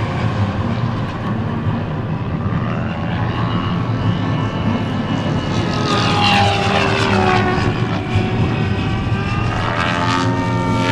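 SAB Comet radio-controlled speed helicopter flying fast passes: the whine of its rotor and drive, falling in pitch as it sweeps past about six seconds in and again near the end.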